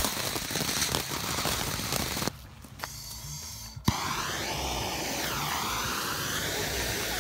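Ground fountain fireworks spraying sparks with a steady hiss and crackle. The hiss drops away suddenly about two seconds in and comes back with a sharp click about four seconds in.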